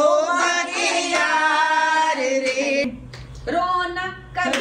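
Women's voices singing a Hindi film song with long held notes, pausing briefly about three seconds in before the next phrase.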